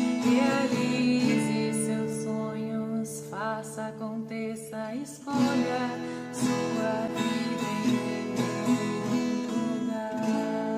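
Outro music led by acoustic guitar, with sustained notes and a few gliding tones.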